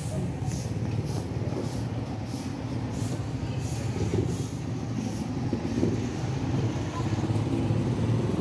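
Steady low rumble of background noise, with faint soft high-pitched rustles recurring about twice a second.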